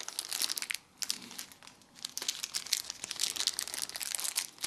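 Thin plastic packaging bags crinkling and rustling as they are handled, a dense run of crackles with a short pause about a second in.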